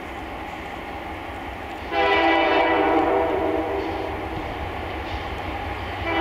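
ALCO diesel locomotive approaching with its engine's low rumble, then sounding its horn for the grade crossing: one long blast starting about two seconds in, loudest for a second or so before easing off and holding softer, with the next blast starting at the very end.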